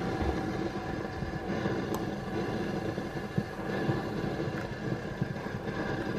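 Steamed milk pouring from a stainless steel pitcher into a ceramic mug of coffee: a soft, steady liquid pour with a light click about two seconds in.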